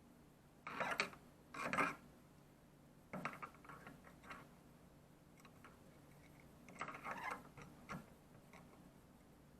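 Several short bursts of clicking and rattling as small faucet repair parts and their packaging are handled.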